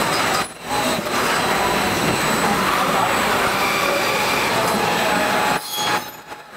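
Steady machinery noise from an automated assembly line: a dense hiss with a faint high whine. It drops away briefly about half a second in and again near the end.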